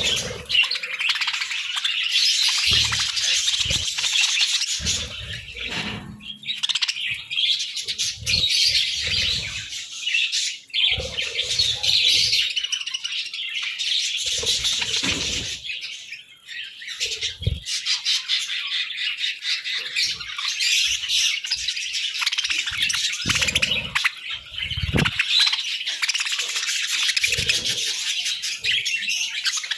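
Budgerigars chattering and chirping without a break, a dense high twittering, with scattered short low thumps.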